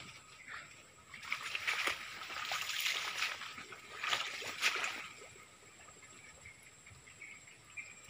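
Footsteps and body brushing through wet, swampy undergrowth: a few irregular bursts of splashing and rustling, the loudest about one to five seconds in, over a faint steady high hum.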